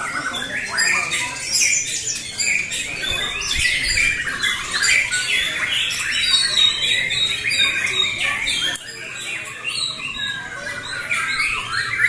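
Several white-rumped shamas (murai batu) singing at once in their hanging contest cages: a dense tangle of fast, overlapping phrases and whistles that rise and fall, the birds answering one another in competitive song.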